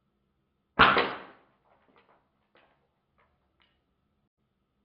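A single shot from an Umarex 850 Magnum .177 CO2 air rifle a little under a second in, a sharp crack with the pellet striking a plastic phone handset, dying away within about half a second. A few faint clicks follow.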